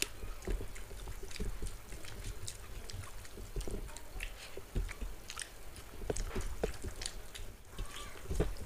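Two people eating rice and curry with their hands from steel plates: chewing and mouth smacks, with fingers mixing rice against the plates, heard as many small irregular clicks and smacks.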